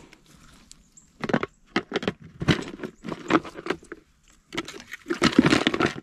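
Irregular rattling and rustling bursts of close handling noise, starting about a second in and loudest near the end.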